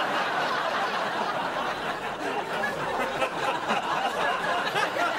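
A studio audience laughing, many voices together at an even level.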